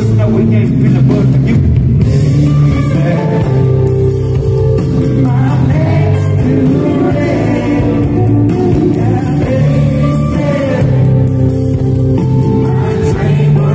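A live band playing a song, with a male singer at the microphone singing over guitar and band, loud and steady.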